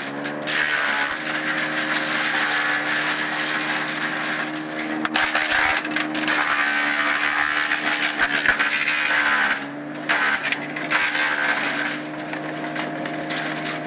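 Large wood chipper running: a steady engine drone under the dense, noisy hiss and crackle of wood being shredded, which eases briefly about ten seconds in.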